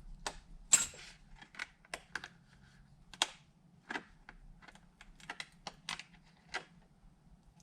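Irregular sharp clicks and ticks, about twenty in all, the loudest about a second in: a razor blade cutting a notch in a thin clear Lexan polycarbonate sheet.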